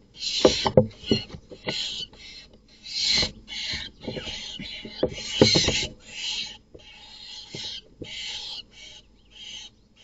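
Barn owls giving harsh hissing screeches in a quick, uneven series of short bursts. Low thumps and scuffling come from the birds struggling against the wooden nest box floor, loudest near the start and about halfway through.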